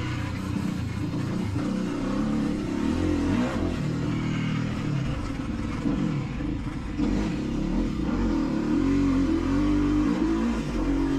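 Dirt-bike engine being ridden hard on a motocross track, its revs climbing and falling over and over, with a sharp surge about seven seconds in.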